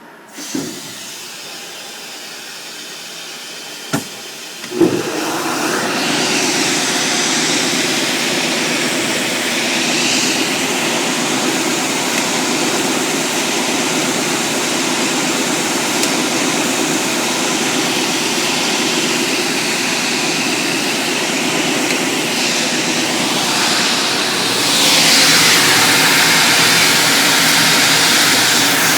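SCM Minimax 25-inch wide belt sander with a 15 horsepower three-phase motor being switched on: a motor starts about half a second in, a sharp click and a thump come near five seconds, and the machine then runs with a steady hum and a hiss that gets louder near the end.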